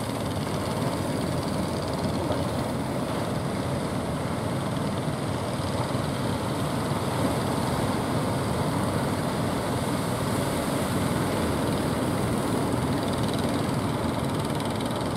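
Steady low rumble at the shore: surf on the beach mixed with the engines of outrigger fishing boats running offshore, even throughout with no separate knocks or beats.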